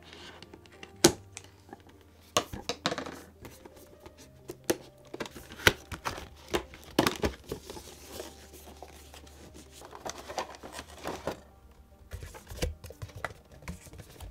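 Cardboard figure box being opened and its clear plastic blister tray pulled out and handled: many sharp plastic clicks and crinkles, with background music.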